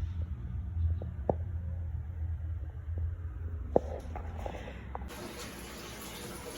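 A steady low rumble with a few light knocks and clicks. About five seconds in it cuts abruptly to a steady hiss of running water, typical of water pouring into a tank.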